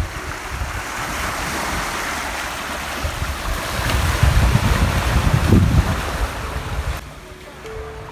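Wind buffeting the microphone at the water's edge, gusting hardest midway, over the wash of waves on the shore. Background music comes back in near the end.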